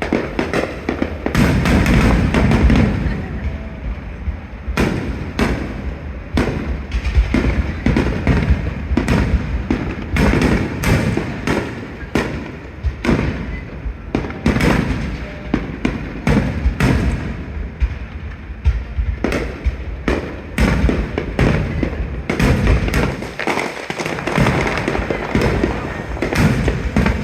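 Aerial firework shells bursting in quick, dense succession: many sharp bangs, often running into one another.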